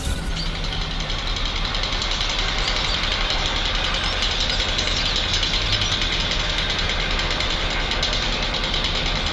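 A steady, even mechanical rumble with a hiss.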